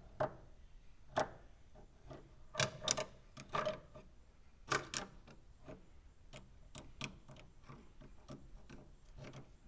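Irregular light clicks and taps of hand tools, such as a screwdriver, being handled on metal in a car's engine bay, with a few louder knocks clustered in the first half.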